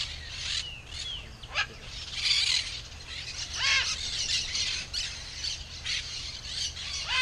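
Macaws squawking: repeated harsh calls, the loudest about halfway through and again near the end, over a busy chorus of other birds calling.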